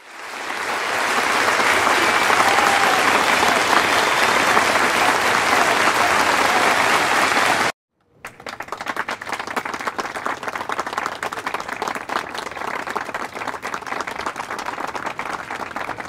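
Large crowd applauding and cheering: a dense, loud wash of clapping that fades in at the start. It stops abruptly a little before halfway, and after a brief silence a smaller audience applauds more quietly, with individual claps more distinct.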